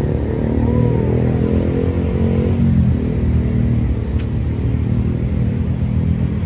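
A motor vehicle engine runs steadily with a low hum. A brief sharp click comes about four seconds in.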